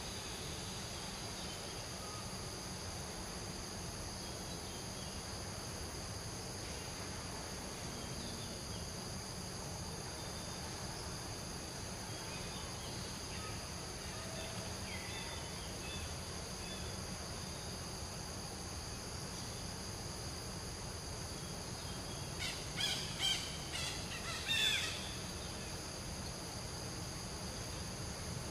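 Steady high-pitched drone of insects with a low rumble of background noise. About three-quarters of the way through, a quick run of short, sharp animal calls sounds, the last and loudest sliding downward.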